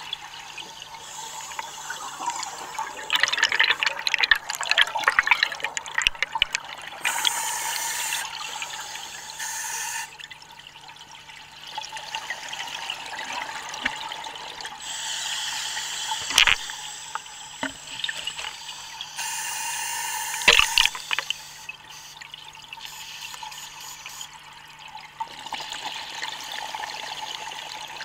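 Scuba diver breathing through a regulator underwater: recurring hissing inhales and gurgling bursts of exhaust bubbles every few seconds. A faint steady low hum runs underneath.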